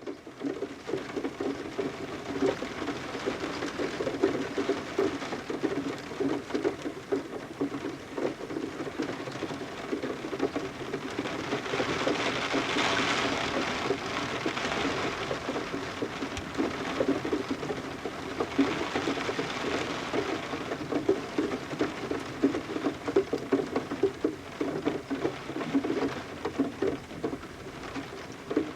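Rain pattering on a window pane, heard from indoors, with water dripping: a dense, steady stream of small taps over a wash of rain noise. The rain swells heavier about halfway through.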